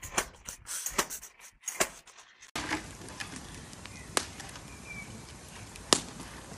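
Irregular knocks and clatter of plaster being chipped off a wall. Then it changes abruptly to a steady outdoor background hiss with a few isolated sharp clacks, the loudest about six seconds in.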